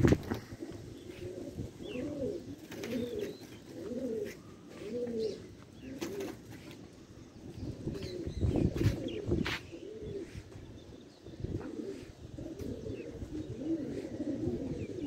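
Domestic pigeons cooing repeatedly close by, a run of low rolling coos about one a second, with a few short loud thumps in between.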